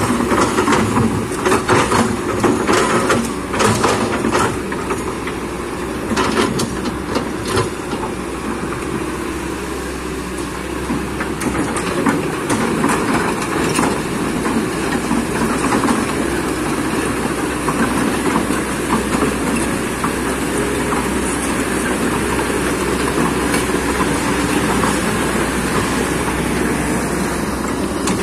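Kobelco hydraulic excavator at work: its diesel engine runs steadily, with a string of clanks and knocks of steel and rock over the first several seconds.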